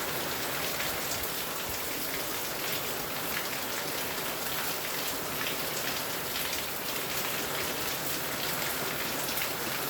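Steady rain falling: an even hiss of many drops with faint individual drop ticks.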